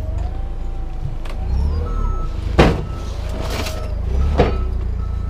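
A vehicle engine running steadily with a wavering whine, and two sharp metal clanks, the louder about two and a half seconds in and another near four and a half seconds, as scrap is loaded.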